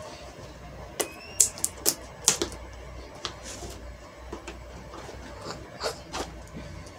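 Scissors snipping at the packing tape and cardboard of a box: a run of sharp clicks and snaps about a second in, then a couple more near the end.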